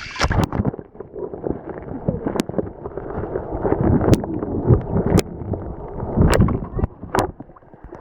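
Water gurgling and sloshing, sounding muffled, with several sharp clicks.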